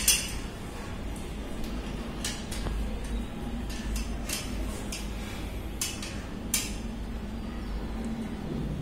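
Metal satellite-dish mounting parts and brackets clinking and knocking together as they are handled and taken out of a plastic bag, in scattered sharp clicks over a low steady hum.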